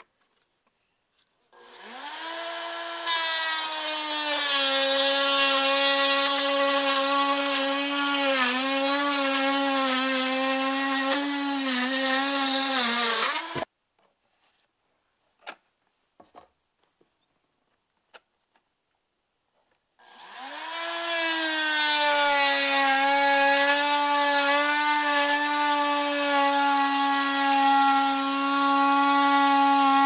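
Dremel Trio rotary tool's motor whining as its bit cuts through a wooden board. It spins up about a second and a half in, runs with its pitch dipping and wavering as the bit bites, and cuts off suddenly about halfway. After a few light clicks it starts again, rises to speed and keeps running.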